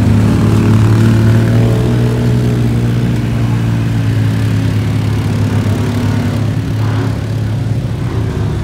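A vehicle engine running steadily at low revs close by, a loud, even drone that barely changes in pitch.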